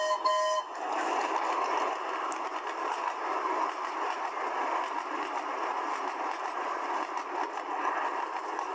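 A steam train's whistle sounds and stops about half a second in. The steady running noise of the train follows.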